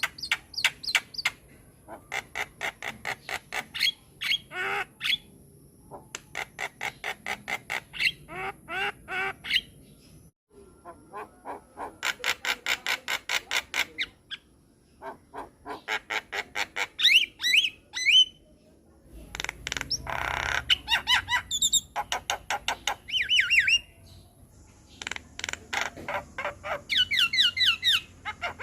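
Javan myna (jalak kebo) singing: fast runs of ticking, rattling notes in bursts of a second or two, broken by harsh squawks and short rising whistles.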